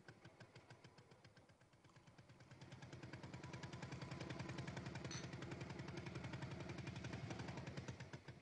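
Small dumper truck's engine puttering with a rapid, even beat. It grows louder about two and a half seconds in as the truck draws near, then falls away near the end.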